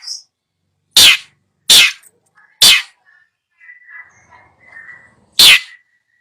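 Long-tailed shrike (cendet) giving four loud, harsh, rasping calls, each a fraction of a second long, with quieter twittering chatter between the third and fourth.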